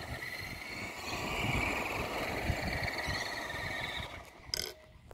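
Outdoor ambience: a steady high-pitched insect chorus with wind rumbling on the phone microphone. About four seconds in the sound drops away and a single sharp click follows.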